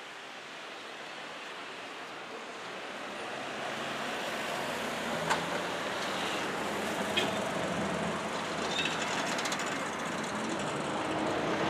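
Steady traffic noise of a busy city street, slowly growing louder, with a couple of sharp clicks partway through.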